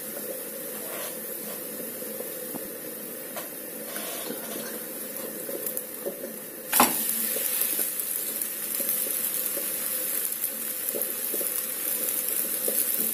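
Pancake batter sizzling in an oiled frying pan. About seven seconds in there is a sharp slap as the pancake is flipped over, and the sizzle is louder after it.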